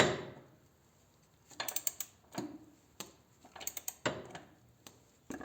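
Tool clicks from a wrench on the motorcycle's rear axle nut as it is torqued to 135 foot-pounds: a sharp loud click at the start, then several short runs of ratchet clicks.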